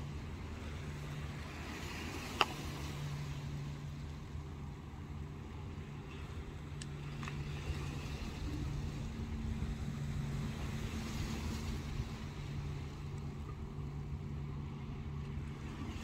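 Steady low drone of the berthed ferry MV Bute's engines, with small waves washing on the shingle. A single sharp click sounds about two and a half seconds in.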